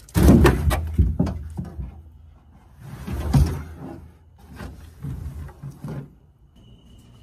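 Thumps, knocks and scraping as a dead whitetail doe is lifted and handled, loudest just after the start and again about three seconds in, with smaller bumps after that.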